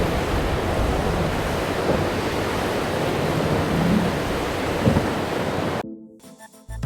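Steady rush of wind on the microphone and surf at the inlet, cutting off abruptly about six seconds in; music starts at the very end.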